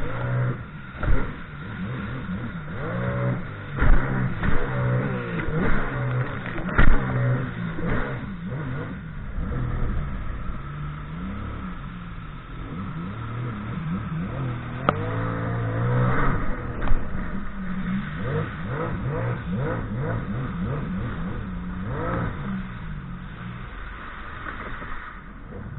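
Sea-Doo Spark's three-cylinder Rotax engine revving up and down repeatedly as the personal watercraft runs the rapids, with several sharp thumps in the first seven seconds.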